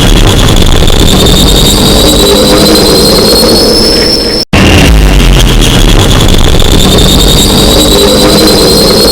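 The 'scientist toilet' horn sound effect, played on a loop: a very loud blare full of noise, with a thin whistle rising slowly through it. It cuts out for an instant about four and a half seconds in and starts over.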